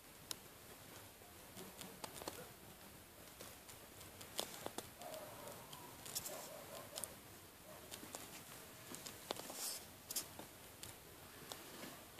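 Faint scattered clicks and light rustling from handling a hand-held phone or camera held close.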